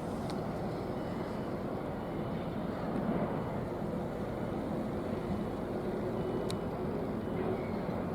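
Steady low engine rumble, with a faint hum and two small clicks, one just after the start and one about six and a half seconds in.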